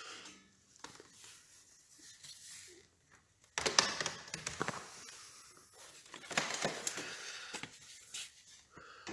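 Rustling and scraping of framed prints being handled and swapped on a stand, in a few irregular noisy stretches starting about three and a half seconds in.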